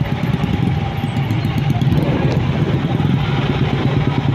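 Motorcycle engine running at low revs in slow stop-and-go traffic, a steady low drone, with surrounding traffic noise.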